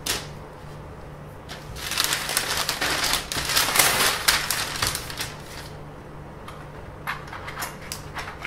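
A large sheet of paper rustling and crackling loudly as it is lifted and turned over, followed by a few light clicks and taps near the end.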